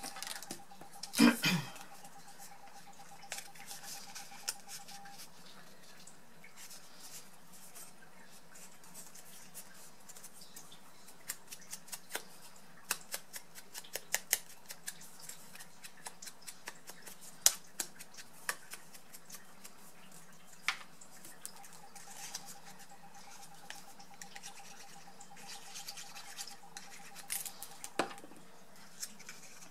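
Paper-crafting handling sounds on a cutting mat: card stock rustling, a louder knock about a second in, and a run of small taps and clicks in the middle. A faint steady hum is heard at the start and again near the end.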